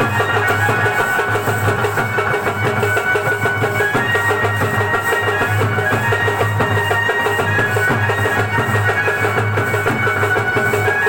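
Loud music with fast, even drumming over a steady low drone and held, reedy-sounding tones.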